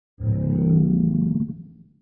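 A large animal's low roar, about a second and a half long, starting suddenly and fading out.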